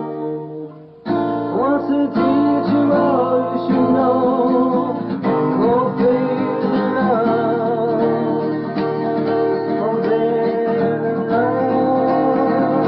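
Music with strummed acoustic guitar and a wavering melody line. The music falls away briefly about half a second in and comes back in full about a second in.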